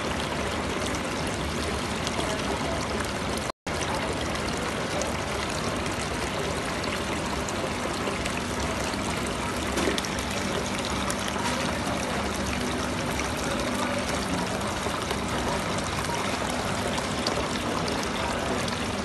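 Water pouring steadily from the spout of a small faux-rock decorative fountain and splashing into its basin. The sound cuts out completely for a split second a few seconds in.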